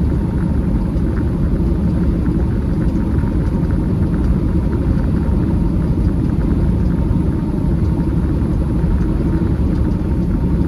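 Steady low rumble of a semi truck's engine and road noise, heard inside the cab while driving.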